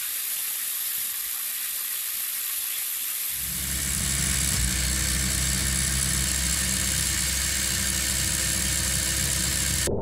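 Lego Power Functions electric motor spinning a Lego Technic wheel through plastic gears: a steady whir with hiss, joined about three seconds in by a steady low hum.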